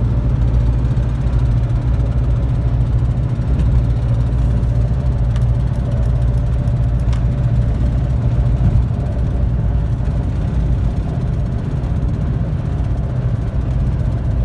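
Car's front-end noise: a steady low rumble with a faint even hum above it, a noise that persists even though the front end has been fitted with all new parts.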